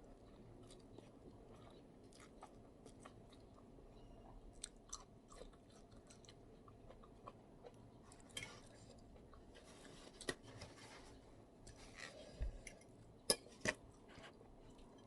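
Close-up eating sounds: wet chewing and mouth clicks with scattered crunchy bites of a spicy instant-noodle salad with shrimp and squid, and two sharper crunches near the end.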